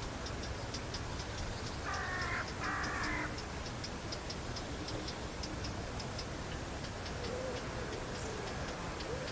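Outdoor ambience with a steady, rapid high-pitched ticking, like insects, over a low rumble. A brief two-part animal call comes about two seconds in, and faint low wavering calls come near the end.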